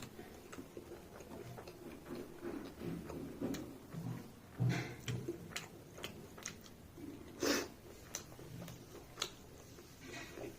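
Close-up eating sounds: chewing and small mouth clicks come and go, with two louder short smacks about four and a half and seven and a half seconds in.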